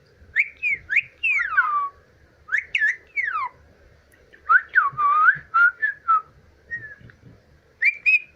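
Indian ringneck parrot whistling: several bursts of short, sliding whistle notes, most of them falling in pitch, with brief pauses between.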